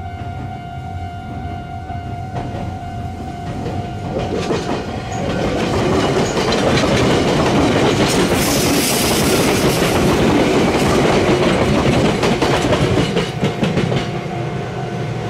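A red Meitetsu electric train passing close by, swelling from about four seconds in to a loud rumble with its wheels clattering on the rails, then easing off near the end. A steady high tone sounds at the start, fades under the train and comes back near the end.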